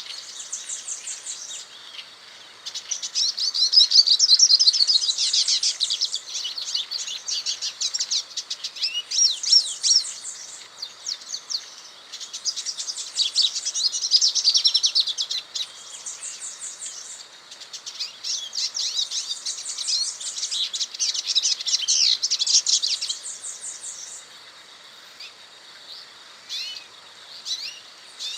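A small songbird singing a run of rapid, high twittering phrases with fast trills, each lasting two to three seconds, with short pauses between them.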